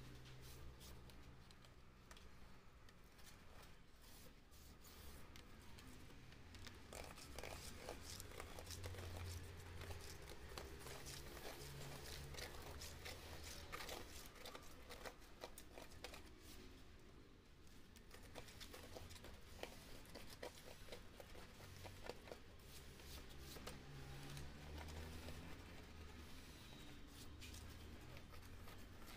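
Faint scraping, rubbing and tearing on the glass of an LCD panel as old polarizer film and its residue are worked off by hand, made up of many small scratchy clicks, busiest in the middle. A low steady hum runs underneath.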